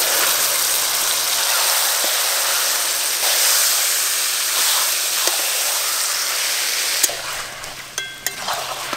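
Marinated chicken dropped into hot oil in a wok, sizzling loudly as it is stirred with a spatula. The sizzle drops off after about seven seconds, followed by a few sharp clicks.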